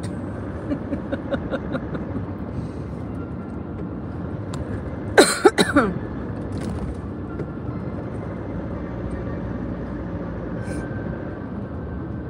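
Steady road and engine noise inside a moving car's cabin. About five seconds in, a person coughs loudly in a short burst.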